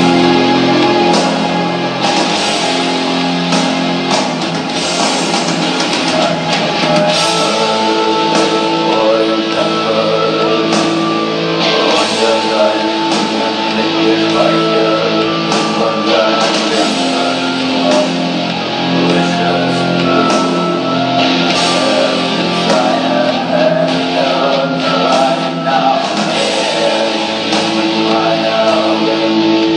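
Rock music with guitar, drums and singing, playing loudly and steadily.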